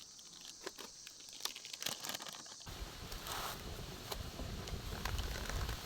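Faint crinkling and crackling of a plastic packet being handled, then a steady low rumbling noise that comes in suddenly about two and a half seconds in.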